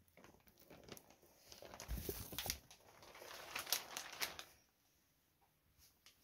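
Cloth and plastic sheeting rustling and crinkling as a blanket is pulled over balls of dough, loudest about two seconds in and stopping about four and a half seconds in.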